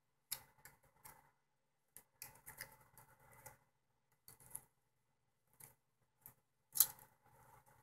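Faint clicks and light scrapes of a small precision screwdriver on a tiny 2mm screw and the camera's thin metal frame, scattered and irregular, with one sharper click near the end.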